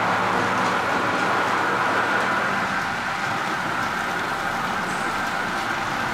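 Model trains running on a layout: a steady whir of small electric motors and wheels rolling on the rails.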